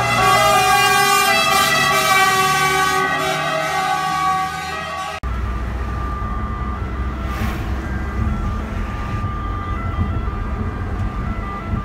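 Italian fire engine's two-tone siren alternating between two pitches, loud and close as the truck passes. About five seconds in it cuts to a quieter two-tone siren heard from inside a following car, over a steady low engine and road rumble.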